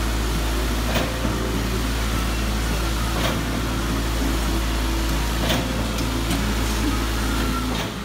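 Concrete pump running steadily, its engine droning, with a sharp knock about every two seconds as the pump strokes concrete through the line hose.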